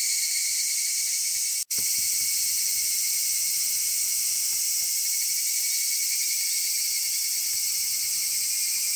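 Steady, dense chorus of cicadas, with higurashi (evening cicadas) calling high and unbroken. The whole chorus cuts out for an instant about two seconds in.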